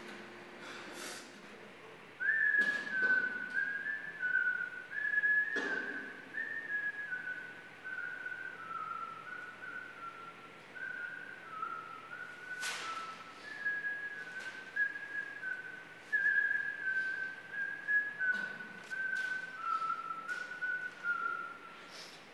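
A person whistling a slow tune of held notes that step up and down, starting about two seconds in. A few short clicks or rustles sound along with it.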